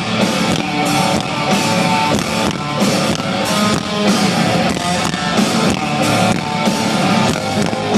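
Live rock band playing an instrumental passage: a loud electric guitar riff over a steady drum kit beat.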